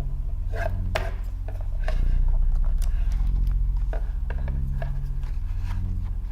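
A low, droning background music bed that swells about two seconds in, with scattered light clicks and rubbing as small objects are handled.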